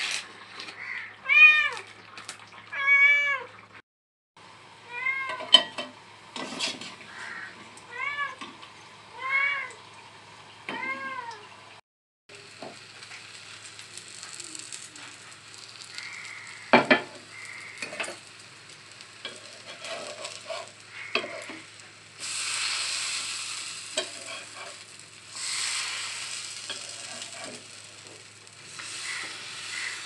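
A cat meows again and again, about eight times over the first twelve seconds. Then hot oil sizzles steadily as battered fritters shallow-fry on a flat pan, with a sharp click or two from a metal spatula.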